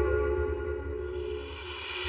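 Background music: slow ambient chords held over a deep bass, gradually fading.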